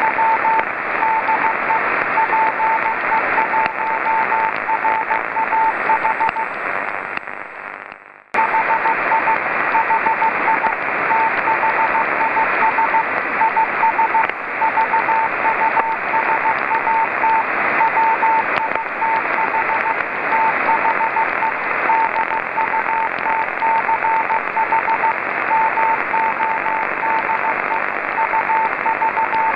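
Morse code (CW) beacon of the VO-52 amateur radio satellite heard through a Yaesu FT-817 receiver: a tone of about 900 Hz keyed in dots and dashes over steady receiver hiss, spelling out the Dutch transponder beacon text 'HI HI HI THIS IS VUSAT'. Around seven seconds in, the hiss fades and the audio drops out for about a second, then comes back abruptly.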